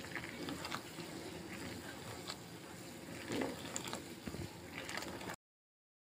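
Water boiling in an aluminium saucepan while a ladle scoops it up and pours it back in, bubbling with scattered splashes and clinks; the sound cuts off suddenly about five seconds in.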